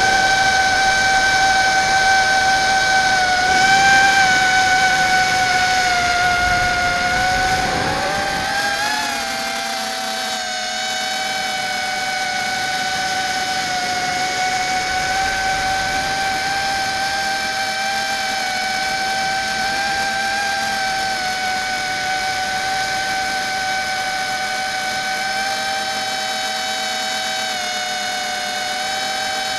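Airblade ZMR150 mini quadcopter's electric motors and propellers whining steadily in flight, heard from its onboard camera. The pitch dips and rises once about eight seconds in, and a low wind rumble fades out soon after.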